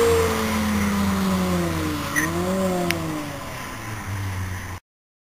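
Honda S2000's F20C four-cylinder engine through a decat pipe and HKS Hi Power exhaust, fading as the car draws away after a fly-by. The engine note falls, rises briefly about two seconds in and falls again, with two sharp clicks. The sound cuts off suddenly near the end.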